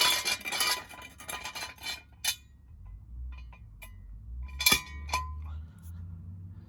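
Metal floor jack clattering and clinking as it is pushed into place under the car, with scattered ticks and a sharp metallic clank about four and a half seconds in.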